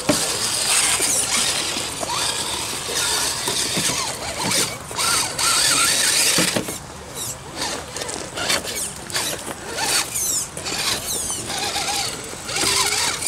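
Electric RC rock crawler's motor and geartrain whining as it creeps and climbs over rocks, the pitch rising and falling with the throttle, with short clicks and scrapes of the tires and chassis on stone.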